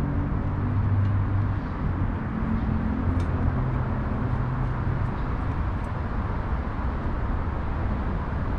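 Steady low rumble of city traffic, with a vehicle engine hum over the first few seconds. A few faint clicks come from a cat eating out of a metal dish.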